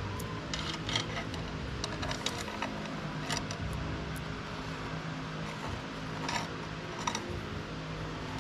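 Go-kart roller chain clinking and rattling as it is handled and fed around a sprocket: a few scattered metallic clinks over a steady low hum.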